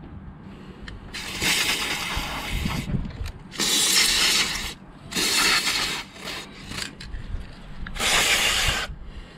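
Aerosol lubricant can sprayed through its straw nozzle in four hissing bursts of about a second each, the first a little longer than the rest.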